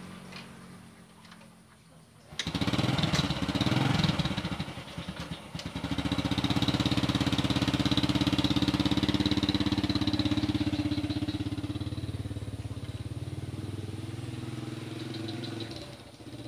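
Motorcycle engine starting suddenly about two seconds in, then running steadily and slowly growing fainter over the last few seconds.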